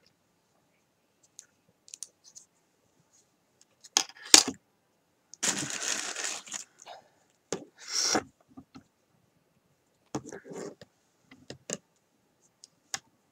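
Handling sounds of knitting work: light metallic clicks and clinks from metal knitting needles, and rustling of the knitted piece and yarn, in short separate bursts. The sharpest clicks come about four seconds in, and the longest rustle runs for about a second just after.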